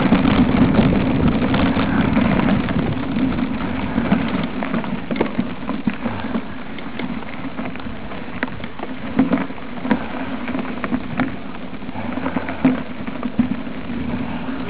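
Mountain bike ridden over a rough dirt and grass track: a steady crunching rattle of tyres and frame, with many small clicks and knocks.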